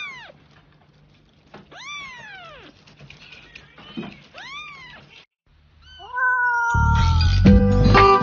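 A very young kitten mewing, high thin calls that rise and fall in pitch, three of them a second or two apart. About seven seconds in, loud music comes in.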